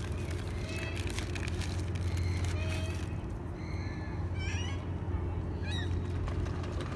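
Many short, high bird chirps and calls, some gliding up and some down, over a steady low hum.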